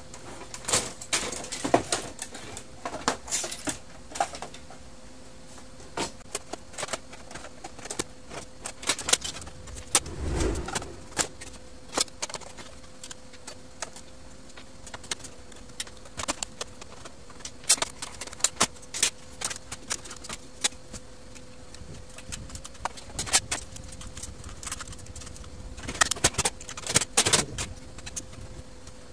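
Scattered clicks, knocks and clatter of a Brother laser printer's plastic housing and parts being handled and taken apart, with one dull thump about ten seconds in. A faint steady hum runs underneath.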